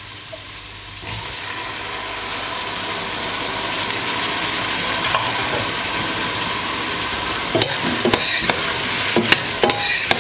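Diced vegetables frying in oil in a stainless steel pot, the sizzle getting louder about a second in as pineapple chunks go in. From about three-quarters of the way through, a spoon stirring with sharp clicks and scrapes against the pot.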